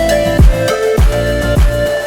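Electronic background music with a steady beat: a deep, pitch-dropping kick drum about twice a second under a held melody.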